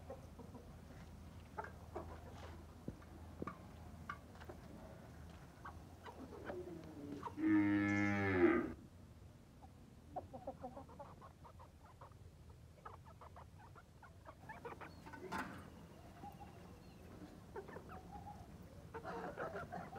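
A single long, low moo from cattle, lasting about a second and a half a little over a third of the way in, dropping slightly in pitch at the end. Faint scattered chicken clucks and small scuffs come before and after it.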